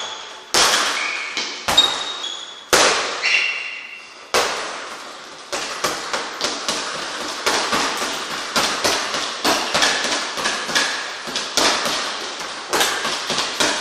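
Boxing-gloved punches smacking a double-end ball on elastic cords: single hits about a second apart, each with a ringing tail, then from about four seconds in quick combinations of several hits a second.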